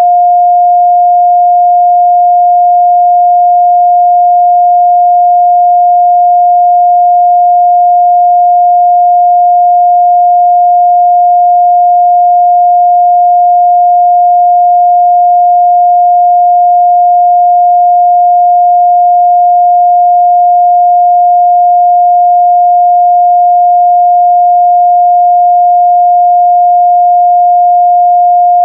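A steady 708 Hz pure sine-wave test tone, a single unwavering mid-range pitch held at constant loudness.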